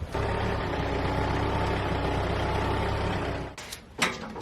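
Tractor engine running steadily at idle, cutting off abruptly about three and a half seconds in, followed by a couple of sharp knocks near the end.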